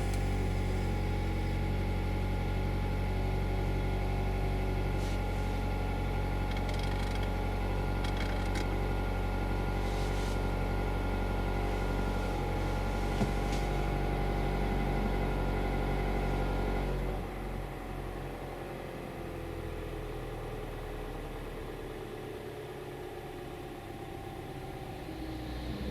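Mazda 2.0 petrol engine idling just after a cold start, heard from inside the closed cabin: a steady hum, which about 17 seconds in drops to a quieter, lower hum.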